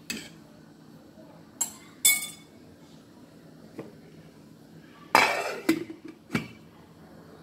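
A metal spoon clinks twice against a stainless steel cooking pot, then the pot's stainless lid is set on with a louder clatter about five seconds in and a last clink, over a faint steady hum.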